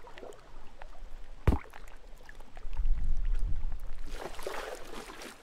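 Water splashing as feet are dipped into the sea over the side of a boat, with a sharp knock about a second and a half in and a low rumble before the splash.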